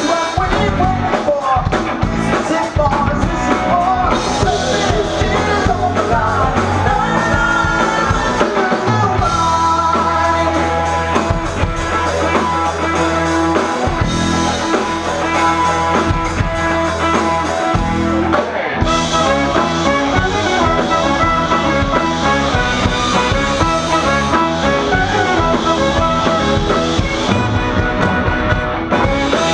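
Live rock band with a horn section of saxophones and trombone playing loudly, recorded on a camera's built-in microphone; long low notes are held through the middle.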